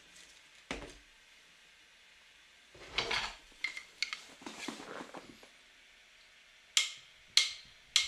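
Pencil scratching on paper in short, faint shading strokes, with a few light taps. There is a cluster of strokes in the middle and two sharper ones near the end.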